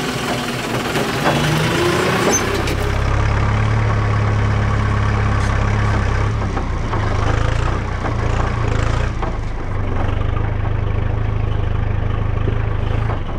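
Kubota loader tractor's diesel engine running as the tractor drives, rising in pitch and getting louder over the first couple of seconds, then running steadily.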